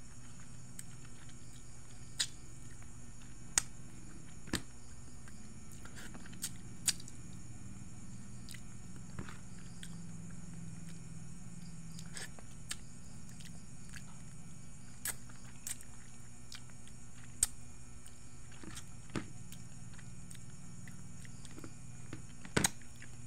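A person chewing food close to the microphone, with scattered short sharp mouth clicks and smacks, over a steady background of high insect chirring and a low hum.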